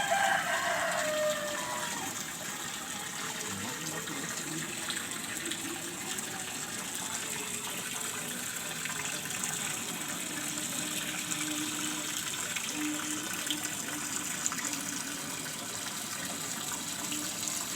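Steady rush of running or pouring water. A brief falling whine sounds at the very start.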